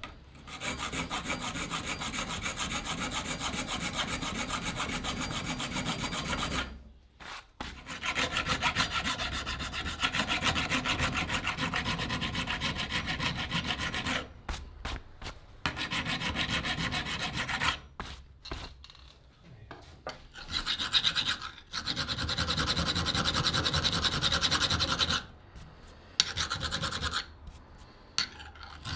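Fast, repeated abrasive rubbing strokes on the cleaver's handle, in several runs of a few seconds separated by short pauses.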